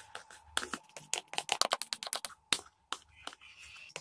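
Metal spoon clicking and scraping against a small glass bowl as the frothy yeast starter is scraped out into the batter: a quick run of taps in the first two seconds, then a few single taps.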